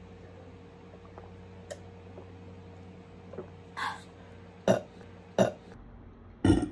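A woman burping after gulping a soft drink: a breathy exhale about four seconds in, then three short burps, the last one the loudest and deepest, near the end.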